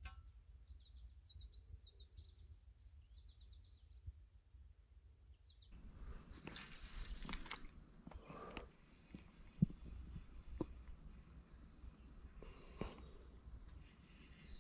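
A songbird sings series of short, high chirps. After a cut, a steady high-pitched insect drone runs on, with a few sharp knocks, the loudest about ten seconds in.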